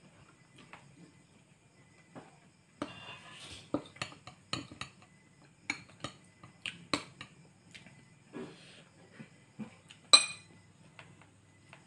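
A metal spoon and fingers clinking and scraping on ceramic plates and bowls while eating: scattered sharp clicks, with one loud ringing clink near the end.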